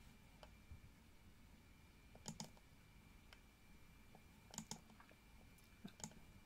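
Faint computer mouse clicks, about half a dozen spread through an otherwise near-silent stretch, some coming as quick double clicks.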